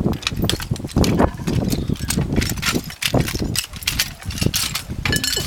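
Irregular sharp clicks and knocks, several a second, over a steady low rumble.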